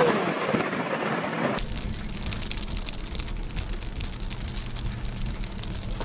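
Heavy rain falling in a thunderstorm, a steady hiss with fine crackle over a low rumble of thunder. The sound changes abruptly about a second and a half in.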